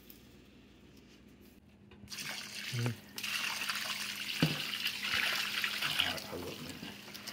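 Broth being poured from a metal stockpot onto a cooler full of ground, seasoned wild-hog boudin meat: a steady splashing pour that starts about two seconds in and tails off near the end.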